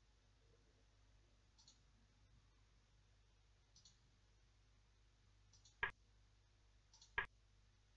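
Computer mouse clicking twice, about a second and a half apart near the end, with a few fainter ticks earlier; otherwise near silence. The clicks step the chess program's board forward move by move.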